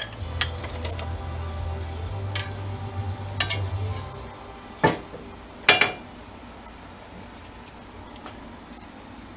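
Pieces of scrap metal clinking and clanking as they are handled, five or so sharp clanks spread over the first six seconds, with a low hum that stops about four seconds in.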